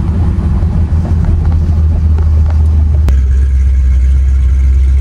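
Steady low rumble inside a moving car's cabin: engine and road noise while driving. A single faint click comes about three seconds in.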